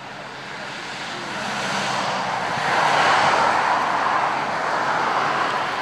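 Police patrol car driving past on a road. The tyre and engine noise swells, is loudest about three seconds in, then eases off near the end.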